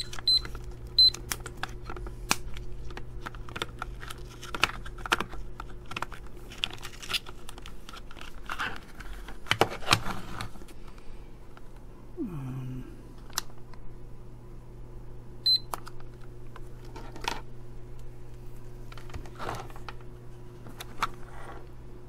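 Irregular plastic clicks and knocks as a 9-volt battery is snapped onto its clip and fitted into a handheld cable tester's plastic case, and the case is handled, over a steady low hum.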